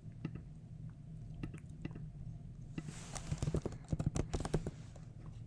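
Typing on a computer keyboard: a few scattered clicks, then a quick run of key clicks about three seconds in, over a faint steady low hum.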